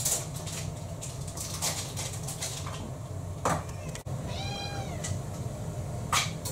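A domestic cat meows once, a call that rises and falls, about four and a half seconds in. Several sharp clicks and knocks come before and after it, the loudest a little after three seconds, over a steady low hum.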